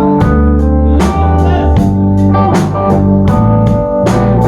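Live blues band playing an instrumental gap between vocal lines: guitar, organ, bass and drum kit with a steady beat.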